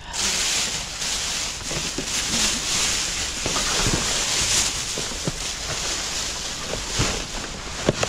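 Clear plastic trash bags rustling and crinkling right against the microphone as they are dug through, a continuous crackly hiss with scattered small clicks.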